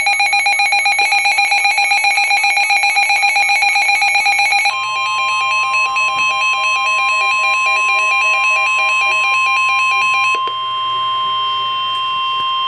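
Emergency Alert System alert tones. A fast warbling electronic alarm runs for about the first five seconds. Then a single steady, piercing tone takes over and holds for about nine seconds, with another warbling tone over it until about ten seconds in.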